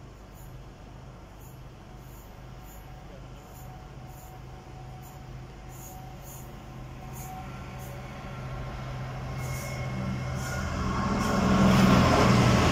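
A Freightliner locomotive approaching and passing close by. Its rumble builds through the second half and is loudest near the end, over a lower steady hum.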